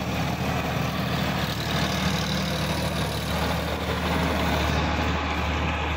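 Sonalika DI-50 RX tractor's diesel engine running steadily under load while driving a rotary tiller through the soil.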